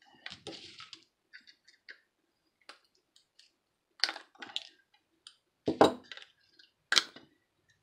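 Plastic clicking and cracking as a walkie-talkie's housing is pried apart and its circuit board worked loose by hand, with three louder knocks in the second half.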